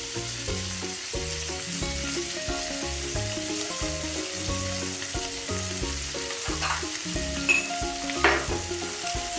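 Lamb T-bone steak sizzling steadily as it sears in a hot pan with butter and oil, with a couple of sharp clicks near the end.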